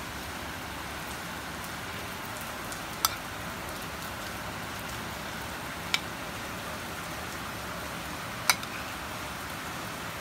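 Steady hiss of heavy rain falling, with three sharp clinks spread through it, about three seconds apart.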